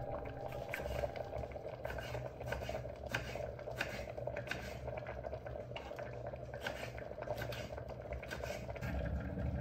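Kitchen knife slicing a tomato on a wooden cutting board, the blade knocking on the board in irregular single strokes about once a second. Under it runs the steady sound of a covered pot boiling on the hob.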